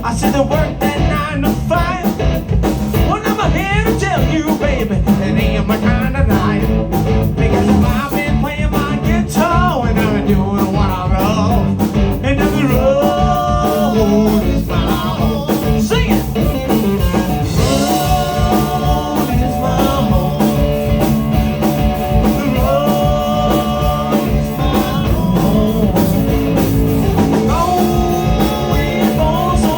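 Live blues-rock band playing: electric guitar with bent, sliding notes over bass and a steady beat.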